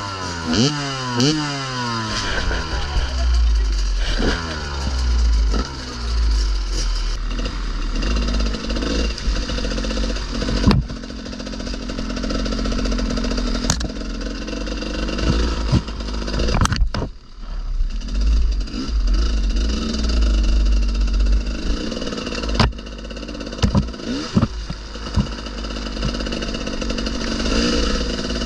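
Enduro motorcycle engine running over an off-road trail. Its revs slide down several times in the first few seconds, then rise and fall unevenly, with sharp knocks now and then.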